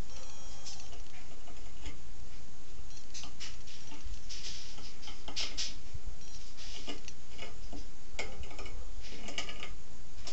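A marking tool scratching and tapping on a wood blank as a circle is scribed freehand, in short irregular strokes with light clicks, over a low steady hum.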